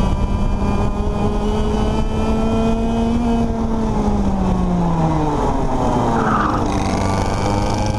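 Racing kart's engine heard from onboard, running at high revs, its pitch dropping about four seconds in as the throttle is lifted for a corner, then climbing again as it accelerates out.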